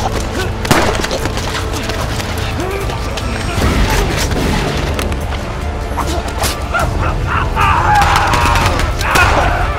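Action-film soundtrack: a steady music score under dubbed fight sound effects, with sharp hits and booming gunshots, and strained voices near the end.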